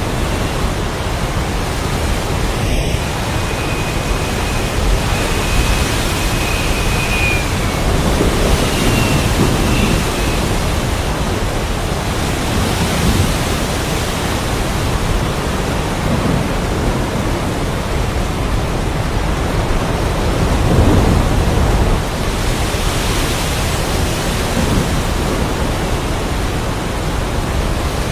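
Steady heavy rain and wind as a dense, even hiss, with low thunder rumbles swelling and fading every few seconds, strongest about two-thirds of the way through.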